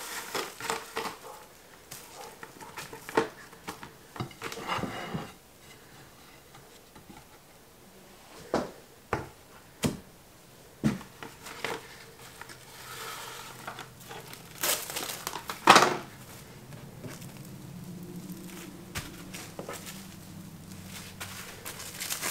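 Kitchen handling sounds: a spatula scraping and tapping as pizzas are loosened from baking sheets and cutting boards, and plastic cling wrap crinkling as it is pulled and wrapped around them. A run of sharp taps comes about halfway through, and the loudest sound, a short rasping burst, comes a few seconds later.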